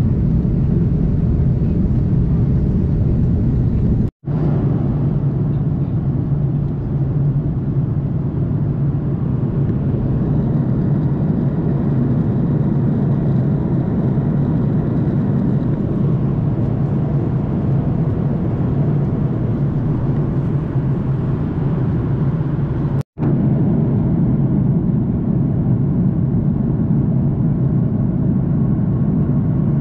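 Steady cabin noise of a jet airliner in cruise: engine and airflow noise with a strong low hum. It drops out twice, briefly, at about 4 and 23 seconds in.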